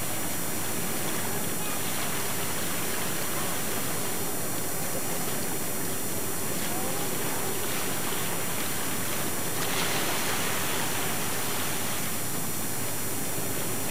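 Steady wind and water noise on open water, under a faint low steady hum, swelling briefly about ten seconds in.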